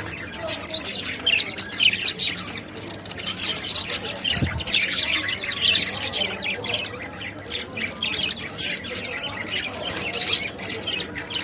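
A flock of budgerigars chattering, with quick overlapping chirps and squawks throughout, mixed with frequent sharp clicks.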